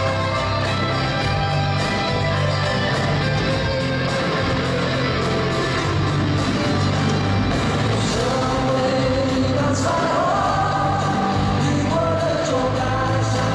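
Live pop-rock band playing loudly: drum kit, electric and acoustic guitars, with male vocals singing over it.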